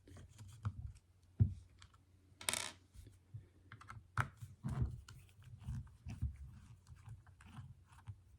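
Light clicks and taps of small Torx screws and the plastic impact driver housing being handled, with a short scraping rattle about two and a half seconds in.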